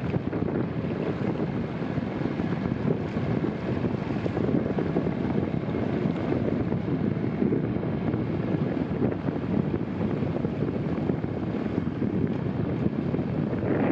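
Wind buffeting the microphone on a moving boat: a steady low rushing rumble with no distinct strokes or tones.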